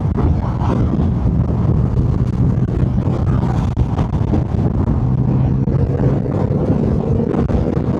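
Triumph Rocket 3 R Storm's 2,458 cc inline-three engine through its stock exhaust, running steadily at highway cruising speed, with wind noise.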